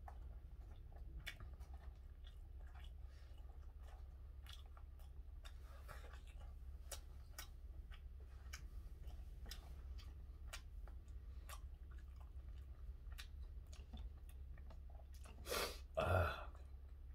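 A man chewing gwamegi (half-dried Pacific saury), faint and close, with many small wet mouth clicks over a low steady hum. Near the end come two short, louder mouth or throat sounds.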